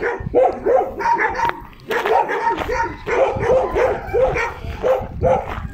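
Several dogs barking, short barks coming quickly one after another, some of them overlapping.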